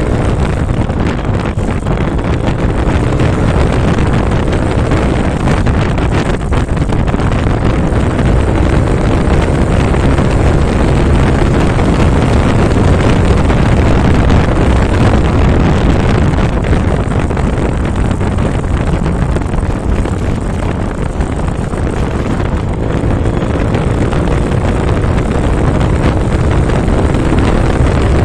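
Motorcycle engine running while riding at speed, with wind rushing loudly over the microphone. The engine note stands out near the start and again near the end, and the wind noise covers it in between.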